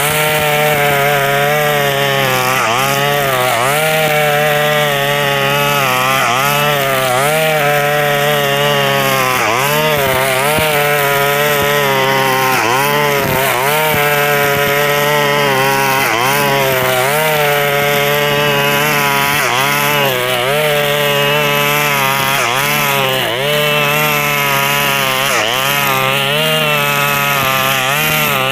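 KNC 4400 two-stroke brush cutter with a nylon line head running loud while cutting tall grass. Its pitch dips and climbs back every second or two as the line loads up in the grass and the engine revs again. The exhaust is rusted through with small holes, which gives it a loud booming "ngong-ngong" note like an old warship.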